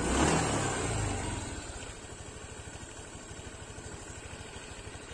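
Honda Vario 150 scooter's single-cylinder liquid-cooled engine running, louder for the first second and a half, then settling to a steady idle. It idles with a rough growling rattle that the mechanic traces to a loose radiator filler cap and its worn mount.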